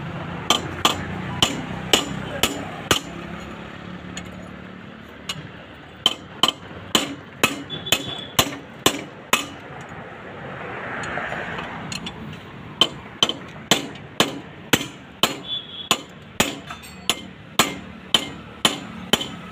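Hammer striking metal in steady blows about two a second, each with a short metallic ring. The blows come in three runs with short pauses between them, as a part is knocked loose from a vehicle being dismantled.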